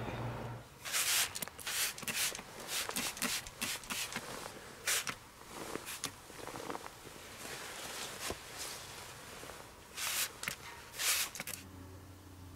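Irregular rustling and scuffing: a dozen or so short, noisy sounds at uneven intervals, the loudest about ten and eleven seconds in.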